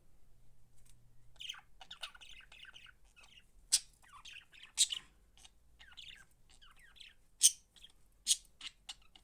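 Budgerigars chattering and warbling, with several short, sharp, louder chirps scattered through it.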